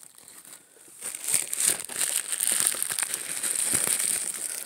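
Bubble wrap crinkling and crackling as it is handled and pulled out of a cardboard box, starting about a second in and running on as a dense crackle.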